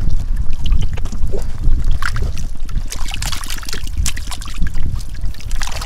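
Water splashing and sloshing in shallow, muddy water, with many short, irregular splashes over a heavy low rumble.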